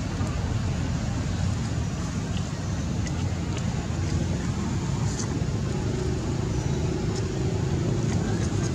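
Steady low outdoor rumble with no clear events, and a few faint clicks.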